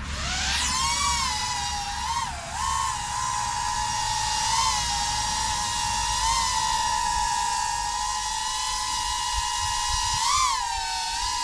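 Flywoo Flylens 85 FPV drone on its original two-bladed propellers, its motors spooling up with a rising whine as it lifts off the pad, then hovering with a steady high-pitched whine. The pitch wavers briefly now and then with the throttle, most markedly near the end.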